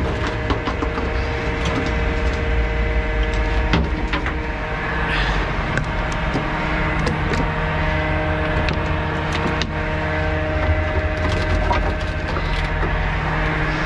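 A truck engine running steadily at idle, with scattered sharp knocks and clicks of metal fittings being handled.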